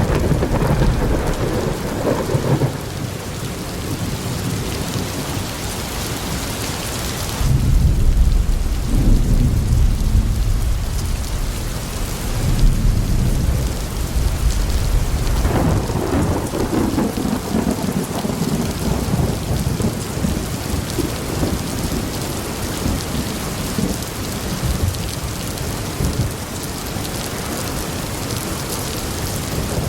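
Rain falling steadily with an even hiss, with heavy low rumbling that swells up about 7 seconds in and again around 16 seconds.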